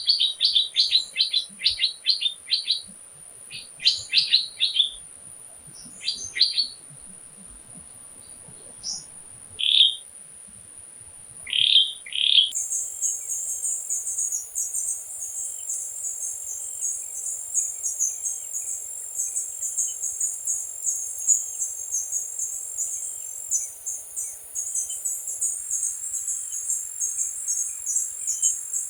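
Birds chirping in quick runs of short calls over a steady high insect whine. About twelve seconds in, this switches abruptly to a dense, high-pitched chorus of crickets or similar insects, with faint regular chirps beneath it.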